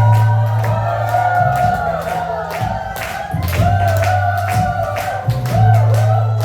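Upbeat music with a steady beat and a held bass line, with voices singing the melody over it.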